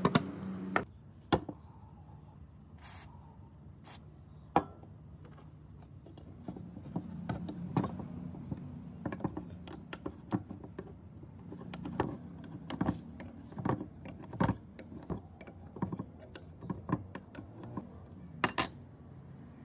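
A wire brush scrubbing rust off steel shear blades stops just under a second in. Then a spanner on the rusty pivot nut of the hedge shears gives scattered light metal clicks and clinks as the nut is worked loose, bunched more thickly in the middle stretch.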